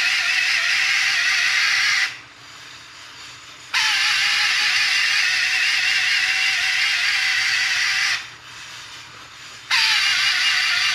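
A motor-driven tool running with a steady high whir, switched off twice for about a second and a half and started again each time, its pitch settling slightly downward after each restart.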